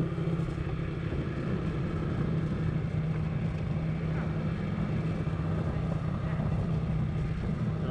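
Motorcycle engine running at a steady speed, a constant low hum with no change in pitch.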